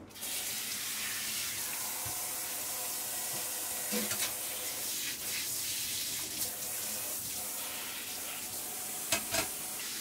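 Kitchen faucet turned on, then water running steadily from its spray head onto a plastic range-hood part being rinsed over a stainless sink. A few knocks come about four seconds in, and two sharper knocks near the end.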